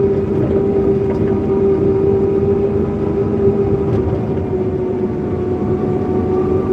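Forklift running, heard from the driver's seat: a rough, steady engine noise with a strong, steady whine over it.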